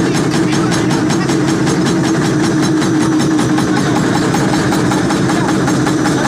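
Hydraulic press running at the die: a steady, loud machine hum with a fast, even pulsing throughout.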